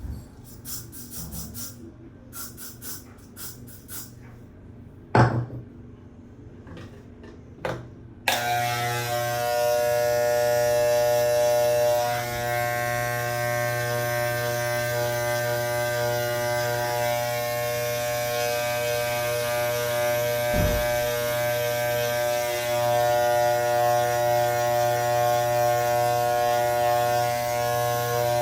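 A few light clicks and a knock, then electric hair clippers switched on about eight seconds in, buzzing steadily as they cut the hair.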